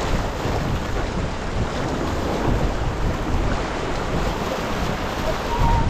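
Steady wind noise on the microphone over water rushing along the hull of a Farr 280 racing sailboat under way.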